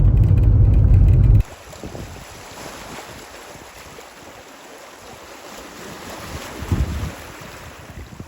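Wind noise on the microphone. A loud low rumble cuts off abruptly about a second and a half in, then a softer steady rush of wind follows, with one brief low thump near the end.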